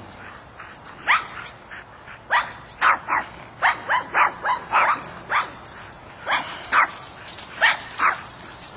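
A small dog barking over and over: about a dozen short, high-pitched barks, some coming in quick runs of two or three.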